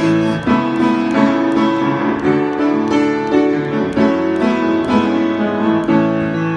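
Instrumental close of a worship song, with chords held and struck on a piano-like keyboard and no singing.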